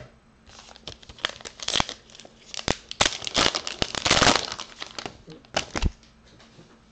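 A paper trading-card pack wrapper, waxy to the touch, being torn open and crinkled by hand in a run of crackling rips. The ripping is loudest midway and stops about six seconds in.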